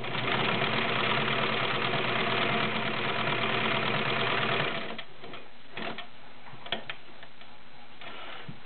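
Kenmore Model 1030 three-quarter-size sewing machine running steadily at speed, stitching a straight stitch for about five seconds and then stopping. A few light clicks follow as the fabric is handled.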